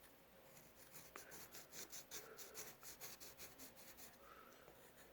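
Faint scratching of a drawing tool on paper: a run of quick, repeated strokes, as when shading or sketching.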